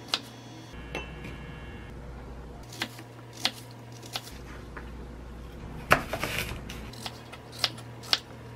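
A paring knife cutting an apple into chunks on a wooden cutting board: a sharp knock each time the blade goes through to the board, about nine irregularly spaced knocks, the loudest about six seconds in with a short flurry right after it.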